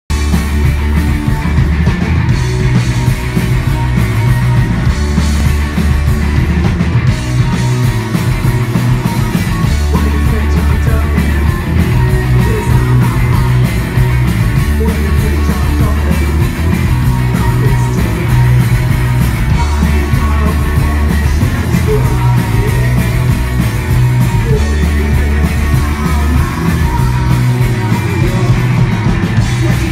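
Rock band playing loud and live: electric guitars, bass and drums with a sung lead vocal, heard through the venue's PA.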